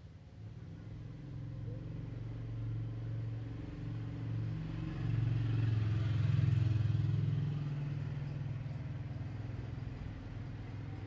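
A motor vehicle's engine passing by: a low, steady hum that grows louder to a peak a little past the middle, then fades.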